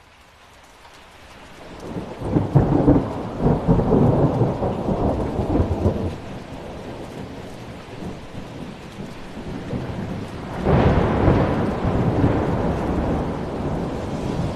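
Thunderstorm: steady rain with two long rolls of thunder, the first building about two seconds in and the second breaking in sharply about ten seconds in.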